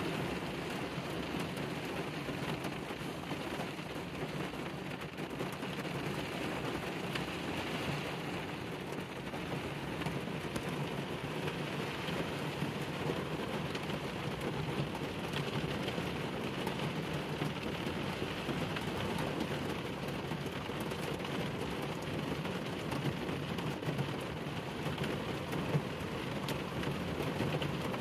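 Steady heavy rain falling on the roof and body of a minivan camper, heard from inside the van as an even, unbroken patter.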